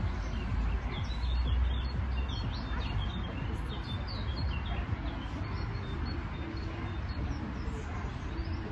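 Songbirds chirping in many short, quick notes, busiest in the middle, over a low rumble that is strongest in the first couple of seconds.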